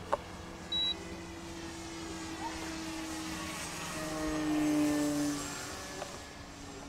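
Electric motor and propeller of a Flyzone Switch RC floatplane flying, a steady hum that swells as the plane passes close about two-thirds of the way through, its pitch dropping slightly as it goes by. A short high beep sounds just under a second in.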